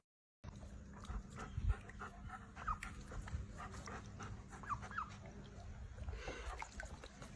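A dog whimpering: several short, high, rising squeaks over a faint steady hum, with a few soft low thumps.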